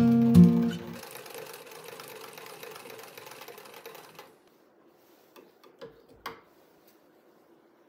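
Acoustic guitar music ends about a second in. A foot-treadle sewing machine then runs steadily, stitching a seam through quilted fabric, and stops about four seconds in. A few light clicks follow.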